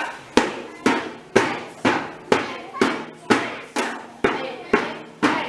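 A drum struck in a steady beat, about two strikes a second, each with a short ringing decay, keeping time like a dragon boat race drum.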